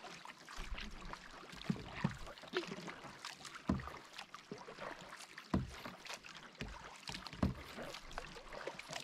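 A canoe being paddled across calm water: irregular splashes and drips from the paddle and water lapping at the hull.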